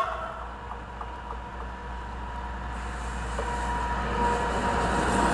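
Small diesel shunting locomotive hauling a train of tank wagons approaches and passes close by, its engine running, with wheel and rail noise growing steadily louder. The tail of a horn blast dies away at the very start.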